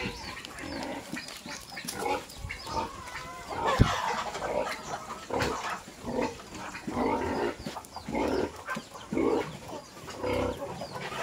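Farm animals calling, short rough calls coming about every half second to a second, with one sharp thump about four seconds in.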